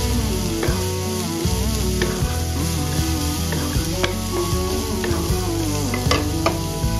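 Sliced onions sizzling as they fry in oil in a pan, stirred with a wooden spatula that scrapes and knocks against the pan several times. Background music with a melody plays along.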